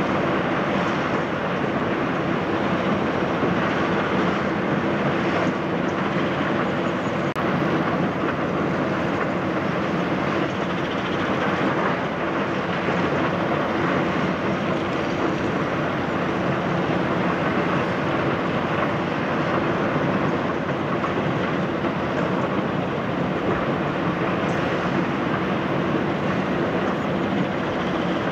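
Komatsu PC350 hydraulic excavator's diesel engine running steadily under load while it digs and swings broken rock, a constant drone with no distinct impacts standing out.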